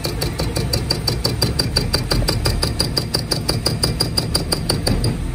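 A machine running with a rapid, even ticking, about eight ticks a second, over a steady low hum; the ticking stops near the end while the hum continues.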